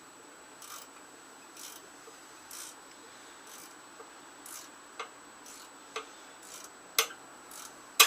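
Ratchet wrench clicking in even strokes about once a second, working a stubborn bolt loose on a small Tecumseh engine, the clicks sharper and louder in the second half.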